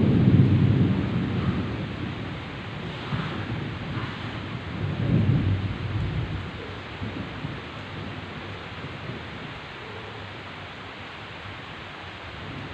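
Heavy rain with thunder. A loud, low rumble of thunder opens and slowly dies away, a second smaller rumble swells about five seconds in, and a steady hiss of downpour runs under it all.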